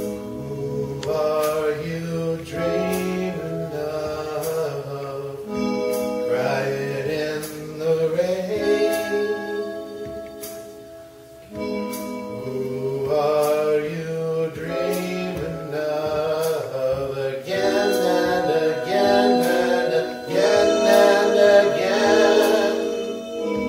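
Electronic keyboard playing a slow instrumental passage of sustained, organ-like chords and melody. It breaks off briefly about halfway through, then picks up again.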